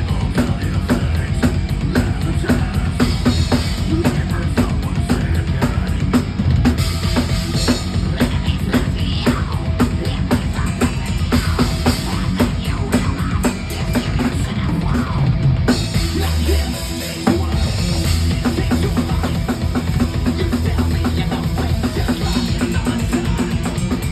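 A thrash metal band playing live at full volume, driven by fast, dense drum-kit strokes with a heavy bass drum under the full band.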